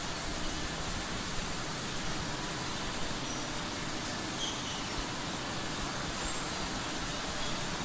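Tortilla and flatbread production line running: conveyor belts, dough-sheeting rollers and their drive motors make a steady, even mechanical noise with a thin high whine.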